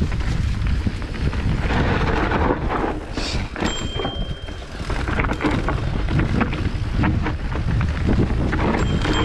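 Mountain bike riding over rough, rocky trail: a steady wind rumble on the camera microphone with a constant rattle and knocking of the bike over the ground. Two brief high squeals come through, one just under half-way and one at the very end.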